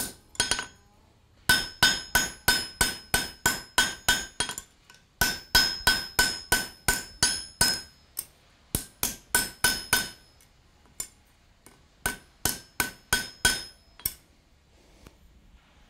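Ball-peen hammer striking hot steel on an anvil in quick runs of blows, about three to four a second, each with a bright ring, with short pauses between runs: the blacksmith is hammer-texturing the shank of a forged doorstop.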